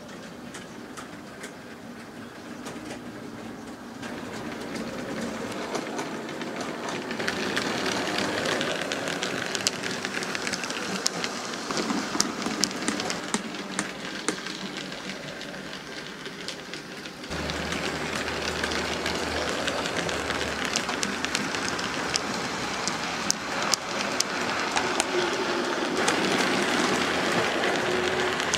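OO gauge model train running on the layout: a steady rattle of small wheels with sharp clicks over the rail joints. It grows louder over the first several seconds, then steps up suddenly about two-thirds through as the train draws close.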